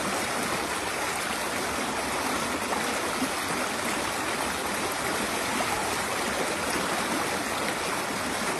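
Shallow rocky forest stream running, a steady, even rush of flowing water.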